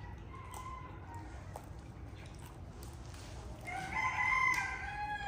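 A rooster crowing once near the end, a drawn-out pitched call that drops at its close, over a low steady background rumble. A fainter, shorter call comes about a second before it.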